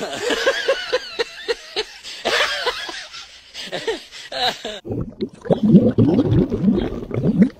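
A person laughing in quick repeated bursts. About five seconds in it gives way to lower, wavering voice-like sounds.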